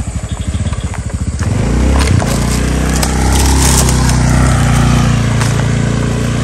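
Small motor scooter engine idling with an even pulse, then opening up and running loud as the scooter pulls away from about a second and a half in. There is a sharp click about two seconds in.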